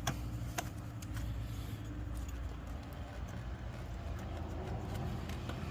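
A motor vehicle's engine running steadily, a low hum, with a couple of light clicks in the first second.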